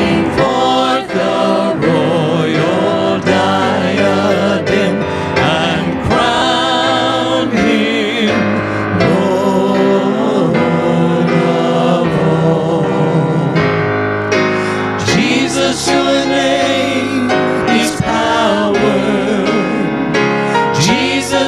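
Small mixed group of men and women singing a gospel praise song in harmony, with wavering vibrato on held notes, over an instrumental accompaniment.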